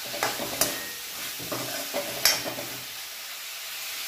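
Mushroom curry sizzling gently in a kadai on a low flame while a metal spoon stirs it, with a few sharp scrapes and knocks of the spoon against the pan, the loudest about two seconds in.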